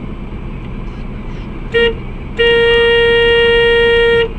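Car horn: one short toot, then a long steady blast of about two seconds on a single note.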